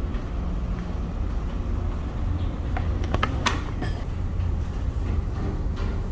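Steady low rumble of a ferry's engines heard inside the passenger cabin, with a few short clicks and knocks about three seconds in.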